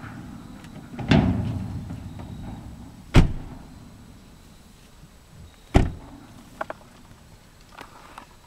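Pickup truck doors being shut: a duller thud about a second in, then two sharp slams about two and a half seconds apart, with a couple of small clicks after the second.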